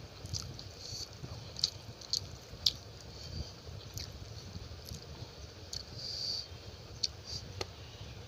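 A person chewing big mouthfuls of rice and saucy chicken curry close to the microphone, with irregular wet mouth smacks and clicks.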